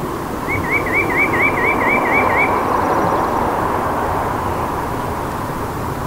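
White-breasted nuthatch singing: a quick run of about ten identical rising-and-falling notes, about five a second, starting half a second in and lasting about two seconds. Under it runs a steady rushing noise.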